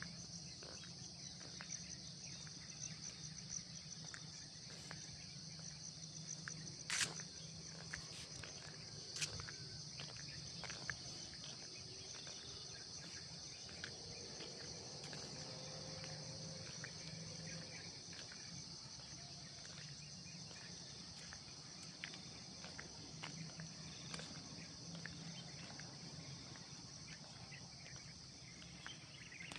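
Steady high-pitched chorus of insects, with a few sharp clicks scattered through it, the loudest about seven seconds in.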